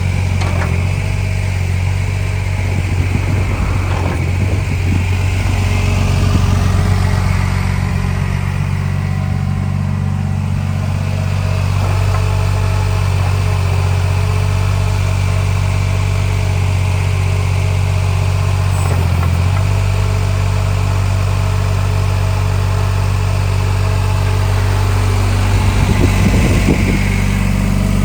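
Yanmar YB10 crawler backhoe's diesel engine running steadily, swelling briefly about six seconds in and again near the end.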